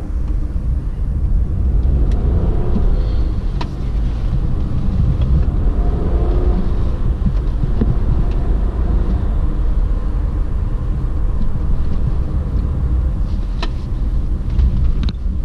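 Car engine and road rumble heard from inside the cabin while driving a winding road, the engine note rising and falling a few times through the bends. A couple of brief clicks stand out.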